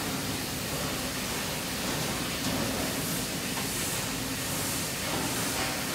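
Steady hiss-like ambient noise of a large factory hall, with a faint steady hum underneath.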